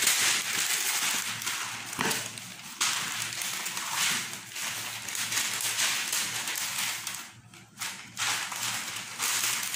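Baking paper crinkling and rustling as it is handled, folded and pressed into a metal baking tray, with a brief lull near the end.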